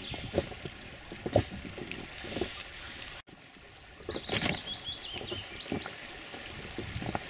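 Small waves lapping and slapping irregularly at the water's edge, with a songbird singing a short phrase of stepping, falling notes about four seconds in. The sound drops out for a moment at a cut about three seconds in.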